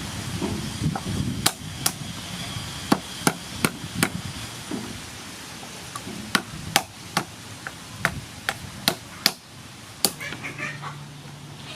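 A series of about fifteen sharp knocks at an uneven pace, with a steady low hum starting near the end.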